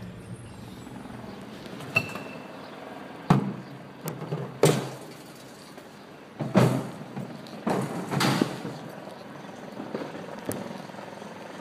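Irregular thumps and brushing noises from a handheld phone being jostled, about eight in all and unevenly spaced, over faint city street background.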